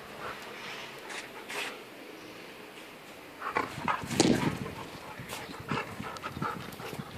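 Siberian husky panting in short irregular breaths while playing with a toy in its mouth, with a louder burst about four seconds in.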